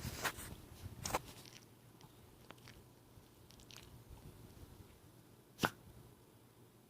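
An elderly dog snorting and sneezing in short, sharp bursts: a few in the first second or so, then one loud snort about five and a half seconds in. The owner fears the snorting, in a 17-year-old dog with a heart murmur, could be an early sign of heart failure.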